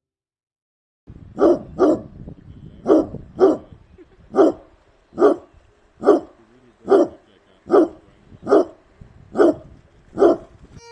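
Basset hound barking, about a dozen single barks at a steady pace of roughly one a second, starting about a second in. The first two come close together.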